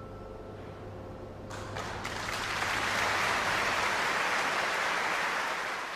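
Audience applause breaking out about a second and a half in, swelling over the next second and then holding steady, as the last chord of the music dies away.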